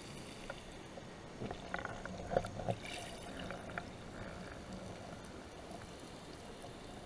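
Underwater ambience heard through a camera housing: a faint steady hiss with a cluster of small clicks and knocks for a couple of seconds near the middle.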